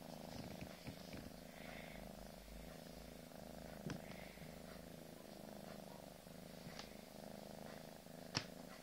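Domestic cat purring steadily at close range. Two sharp clicks cut across it, one about four seconds in and a louder one near the end.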